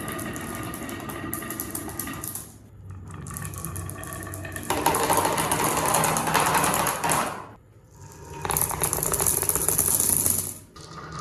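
Marbles rolling and clattering down a wooden and bamboo track: a rapid, continuous rattle of many small clicks that comes in several runs broken by brief pauses. The run a few seconds in is the loudest.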